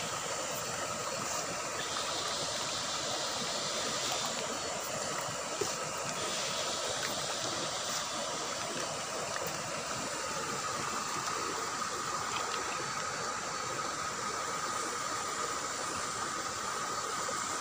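Steady splashing and churning of water as a crowd of carp and tilapia feed at the pond surface.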